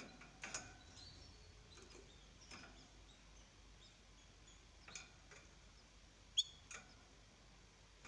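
Faint, scattered short chirps and ticks from canaries, about five in all, the sharpest a little over six seconds in.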